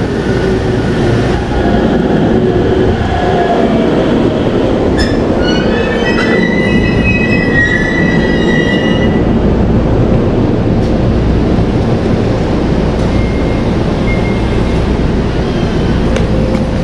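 JR Central electric commuter train pulling into the platform and slowing to a stop, with a steady rumble. A high-pitched squeal of the wheels and brakes rises from about five seconds in and lasts a few seconds.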